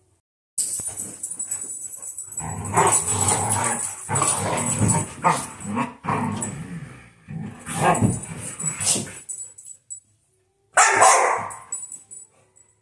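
Several dogs play-fighting, barking and growling at each other in a near-continuous tussle that starts about half a second in. It breaks off at about 9 seconds, followed by one short outburst around 11 seconds.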